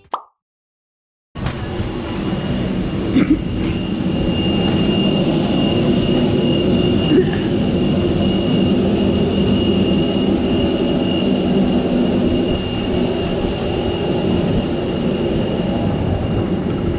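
Steady rumble of a moving vehicle, with a high steady whine over it. It starts abruptly after about a second of silence.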